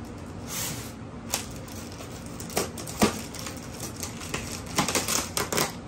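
Plastic packaging being handled and cut with scissors: crinkling plastic bags with scattered sharp clicks and snips, coming faster near the end.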